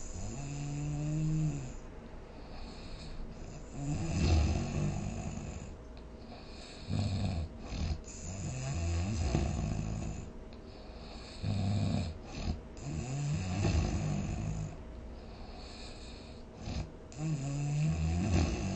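Snoring: a run of about seven snores, one every two to three seconds, several carrying a low, wavering pitched tone.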